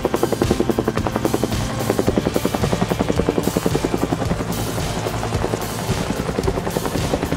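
Two-bladed firefighting helicopter passing overhead: a rapid, even beat of rotor blades, about ten beats a second, over a steady engine tone, the beat growing weaker in the second half.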